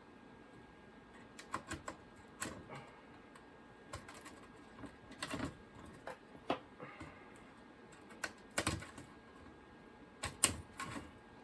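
Irregular clicks and taps of small parts being handled, as RAM modules are worked out of the slots on a Macintosh IIfx logic board, the loudest click near the end.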